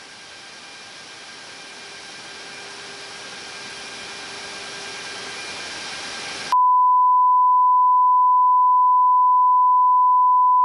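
Steady hiss of aircraft cabin noise that slowly grows louder. About six and a half seconds in, it cuts off and a loud, steady, single-pitched electronic beep tone starts abruptly and holds.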